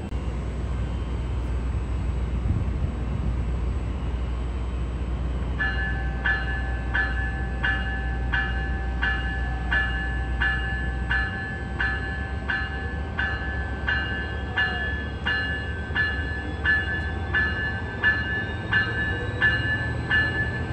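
Commuter train at a station: a diesel locomotive's low, steady rumble. From about six seconds in, a bell rings evenly, a little more than once a second.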